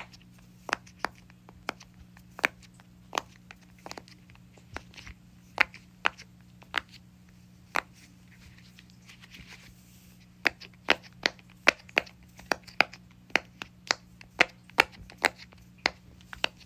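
Silicone pop it fidget toy shaped like a shrimp, its bubbles pressed in for ASMR, two at a time, giving a series of sharp pops. The pops are spaced out at first and come quicker from about ten seconds in.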